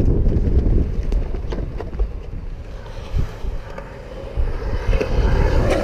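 Skateboard wheels rolling on a concrete ditch with wind buffeting the microphone, a loud rumble that dies down over the first couple of seconds, with a few sharp clicks from the board.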